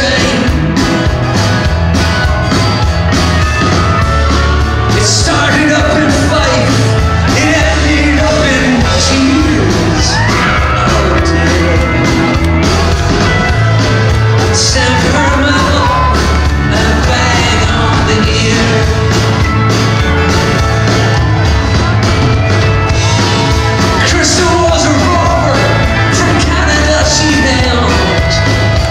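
Live folk-rock band playing loudly through a PA: fiddle over acoustic and electric guitars and drums.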